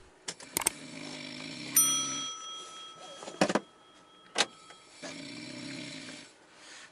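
A heavily drunk passenger snoring loudly in a car: two long snores, the first about two seconds, the second just over a second. An electronic chime sounds about two seconds in and rings for a few seconds, and a few sharp clicks come in between.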